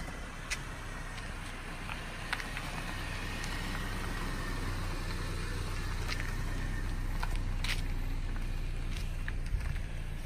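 Steady engine and tyre noise of a car driving in traffic, heard from inside the cabin, growing a little louder over the first few seconds, with a few faint clicks.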